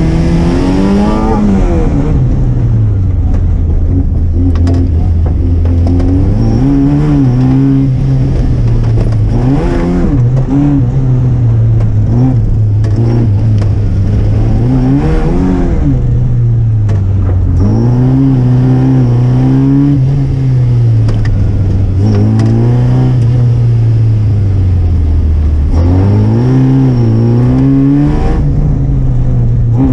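Car engine under hard use in an autoslalom run, revving up and falling back every two to five seconds as the car accelerates and lifts off between the gates.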